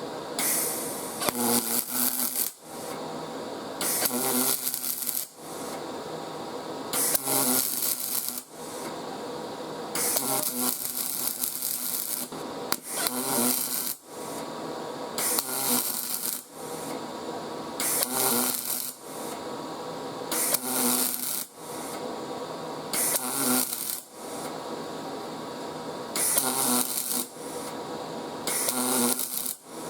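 MIG arc brazing silicon bronze onto a cast iron exhaust manifold in short stitch beads. About ten crackling arc bursts, each a second or two long, come every two to three seconds, with a steady hum between them.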